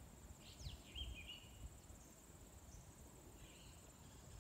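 Faint rural quiet: a steady high-pitched insect drone, a short bird chirp about a second in, and a few low rumbles on the microphone.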